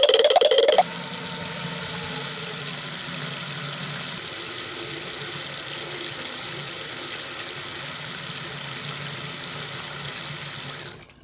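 Water running steadily, fading out near the end.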